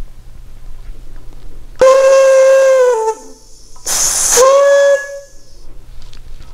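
Pressurised helium venting through the vent valve on the end of a cryocooler compressor's return line, purging the line: two loud whistling hisses. The first starts about two seconds in and whistles for about a second, dropping in pitch as it fades. The second begins about four seconds in with a sharp hiss, then whistles for about half a second.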